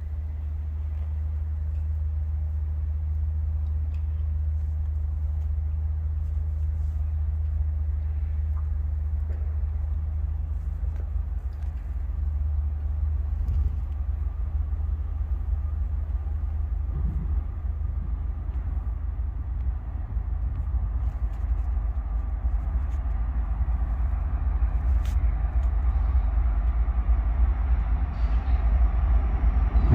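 Diesel freight locomotives rumbling low and steady, growing louder near the end as the train draws closer.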